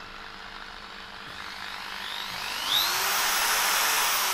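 Makita 550 W hammer drill motor running. About two and a half seconds in, the variable-speed trigger is squeezed further and the whine rises in pitch and gets louder, then holds at the higher speed.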